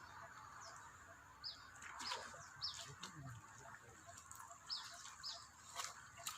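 Small birds chirping outdoors: short, quick, falling calls repeated several times, over a steady high hiss, with a few soft knocks.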